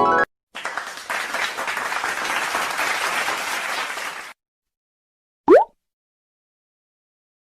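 Stock applause sound effect: a crowd clapping for about four seconds, cutting off abruptly. About a second later comes a short, loud rising whistle-like swoop.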